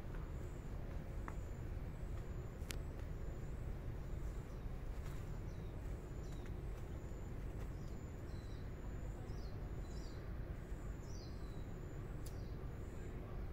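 Outdoor ambience: a steady low rumble, and from about eight seconds in, a small bird gives a run of short, high, falling chirps.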